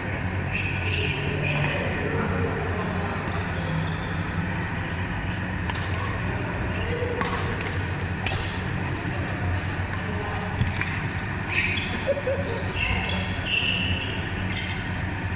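Badminton rally: sharp strikes of rackets on the shuttlecock, about a second apart through the middle of the stretch, with short squeaks of court shoes on the floor. Under it are voices and the steady low hum of a large sports hall.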